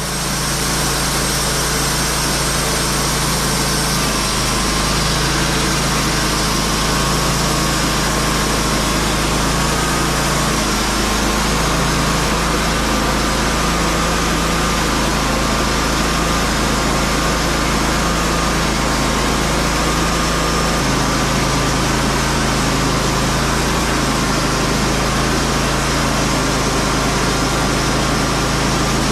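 Small gasoline engine running steadily at a constant high speed, with a thin whine above the engine note.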